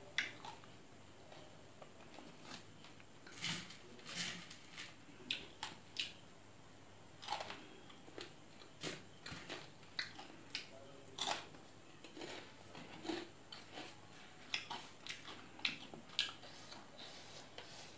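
Close-up eating sounds of panipuri: crisp puri shells crunching and cracking, with chewing in between. The crunches come irregularly, often about a second apart.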